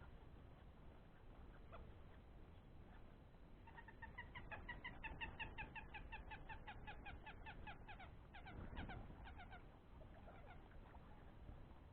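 A bird calling a rapid run of short, evenly repeated notes, about five a second, that starts about four seconds in and stops about six seconds later, over a faint low background.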